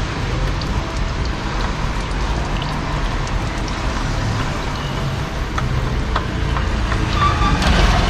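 Engine oil trickling in a thin stream into a drain pan as the oil filter is unscrewed by hand, over a steady low hum, with a few light clicks near the end.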